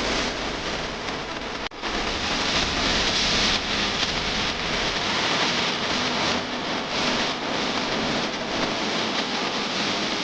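A steady, loud hissing noise with no distinct events, broken by a brief dropout just under two seconds in.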